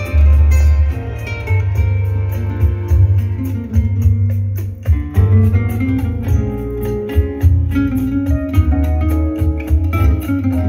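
Instrumental music with a plucked guitar lead over a heavy, deep bass line and a fast, steady high tick, played through a pair of Denon SC-T555SA three-way floor-standing speakers with twin 5-inch woofers.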